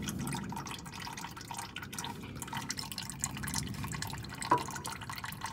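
Used engine oil dripping and trickling into a drip pan as the oil filter comes off, an irregular patter of small drips with one louder click near the end.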